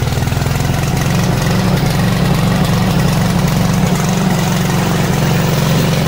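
The 9-horsepower Loncin gasoline engine of a remote-control crawler mower is running steadily just after an electric start.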